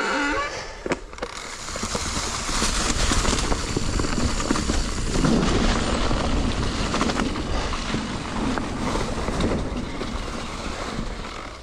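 Wind buffeting the microphone over the rumble of mountain-bike tyres on a dirt trail, with a few knocks near the start.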